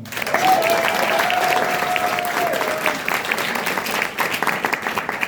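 Audience applauding, a dense patter of many hands clapping. A single long held tone rides over it for the first three seconds or so.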